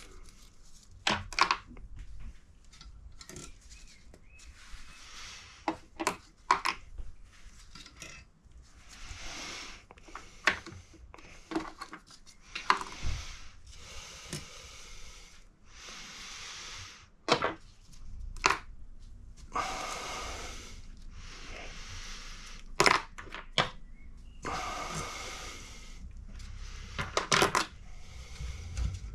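Small metal parts from a stripped cylinder head being handled and dropped into a container: scattered sharp metallic clinks and clicks, with short rustling or scraping sounds in between.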